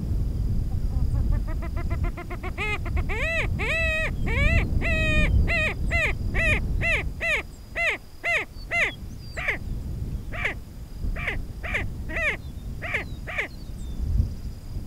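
Attwater's prairie chicken calling: a long run of short, harsh, caw-like notes that come quickly at first and slow down toward the end.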